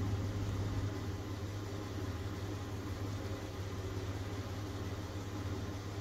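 Car engine idling, a steady low hum with a faint noisy hiss over it.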